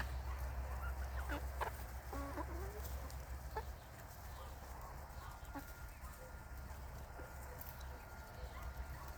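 A flock of chickens in a coop, clucking and calling now and then. Under them runs a low steady hum that cuts out a few seconds in.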